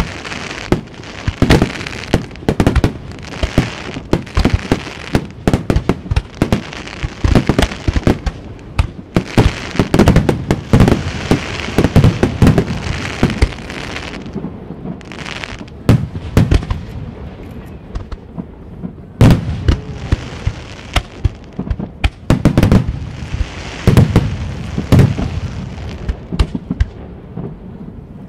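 Japanese aerial firework shells (uchiage hanabi) bursting in quick succession: many sharp bangs, several in some seconds, with spells of crackling between them.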